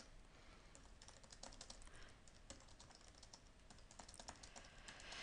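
Faint typing on a computer keyboard: quick, irregular key clicks as words are typed in.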